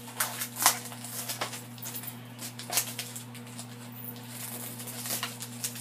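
Plastic-wrapped foam tray of ground beef being handled, its plastic film crinkling in irregular small clicks and crackles, over a steady low hum.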